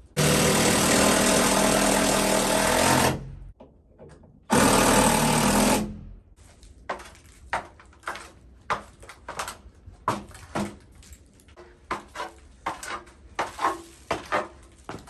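A power tool runs in two bursts, about three seconds and then just over a second, followed by a string of irregular clicks and knocks.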